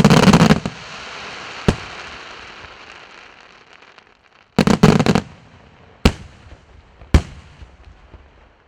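Fireworks display going off: a loud cluster of bangs fading into a crackle, a single report, then another rapid cluster of bangs about halfway and two single sharp bangs near the end.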